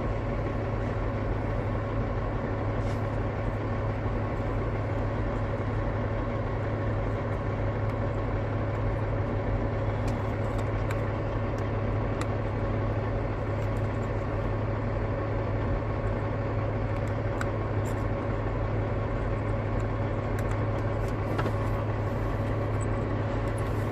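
Steady drone of an idling engine with a strong low hum, unchanging throughout, and a few faint clicks now and then from small parts being handled.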